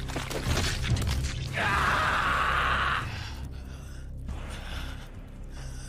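Anime battle sound effects: a steady deep rumble, with a loud hissing burst lasting about a second and a half from near the middle of the first half, then a quieter rumble.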